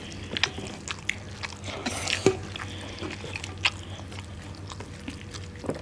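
Eating sounds of rice and chicken liver curry eaten by hand: chewing and mouth smacks with the soft squish of rice mixed with fingers, heard as scattered short clicks and wet noises.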